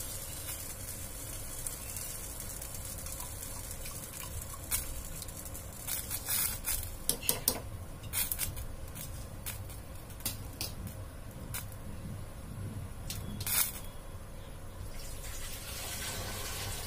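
Large pot of water at a rolling boil on a gas stove: a steady bubbling hiss, with a run of sharp clicks and taps about six to eight seconds in and another near the end.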